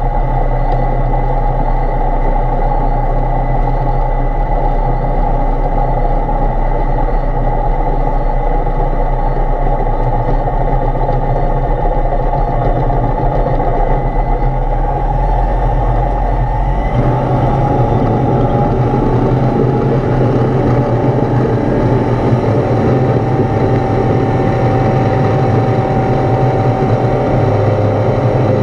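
Foxbat A22LS light aircraft's engine and propeller running at low, taxiing power, heard from inside the cockpit. The engine note changes abruptly about two-thirds of the way through, then runs steadily again.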